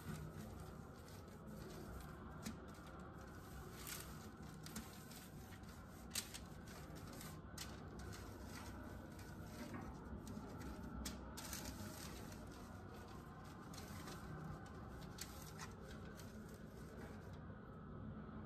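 Faint crinkling and small taps from a foil-lined sheet pan and hands as cauliflower steaks are rubbed with seasoning and turned over. There is one sharper tick about six seconds in, over a low steady room hum.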